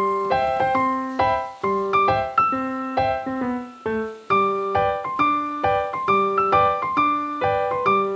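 Piano music: single notes and chords struck in a repeating pattern, each fading after it is struck.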